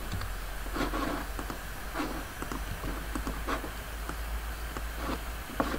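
Faint handling noise from a clip-on lapel microphone held in the hand: scattered light scrapes and clicks of fingers and cable on the mic, over a steady low electrical hum.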